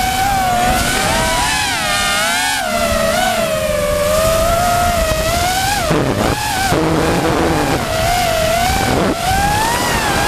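FPV quadcopter's electric motors and propellers whining in flight, heard close from the camera on board, the pitch wavering up and down with the throttle. About six seconds in the pitch drops sharply and runs unevenly for a few seconds before climbing back.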